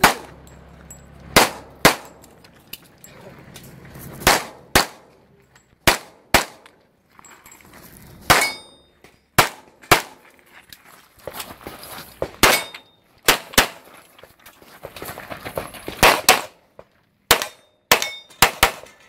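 Handgun shots fired in pairs and short strings during a practical shooting stage, roughly twenty in all with short gaps between. Some shots are followed by the clang and brief ring of steel targets being hit.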